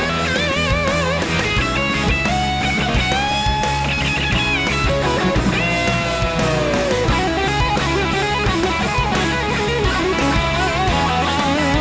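Instrumental break in a country-rock song: a lead electric guitar plays a solo with string bends, slides and vibrato over bass and a steady beat, with no singing.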